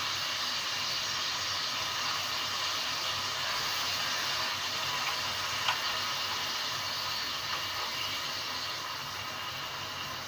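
Marinated chicken pieces shallow-frying in hot oil in a kadhai: a steady sizzle, with one sharp tick about five and a half seconds in. The sizzle eases slightly toward the end.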